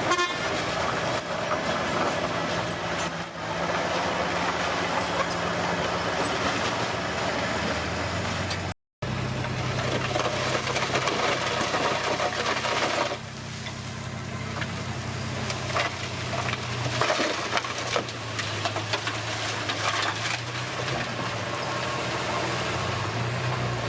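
Komatsu D21P bulldozer's diesel engine running and working, its pitch shifting as the load changes, with scattered knocks and clanks. The sound cuts out completely for a moment about nine seconds in.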